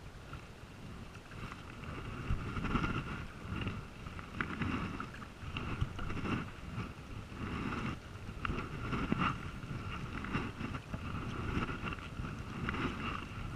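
Sea kayak being paddled: the double-bladed paddle dips and splashes in the water with each stroke, giving pulses about every second or two, with wind buffeting the microphone.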